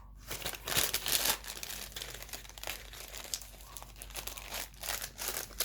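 Packaging being crinkled and rustled by hand as an item is unwrapped, with the loudest rustling about a second in.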